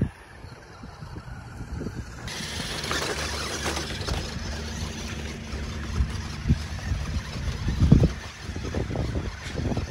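Radio-controlled rock crawler's electric motor and drivetrain whirring steadily as it climbs over loose rocks, with several thumps from its wheels on stones, the loudest about eight seconds in.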